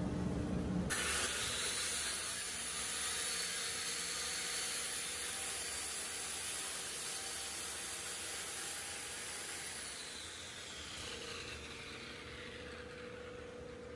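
Dust-extractor vacuum on the joint saw's hose running with a steady airy hiss and a high whine. Near the end the whine falls in pitch as the motor winds down.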